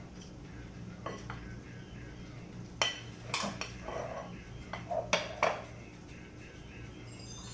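Wooden spoon knocking and scraping against a ceramic plate and a glass mixing bowl as flour is pushed off the plate into shredded cabbage. There are a few sharp clinks, the loudest around three and five seconds in.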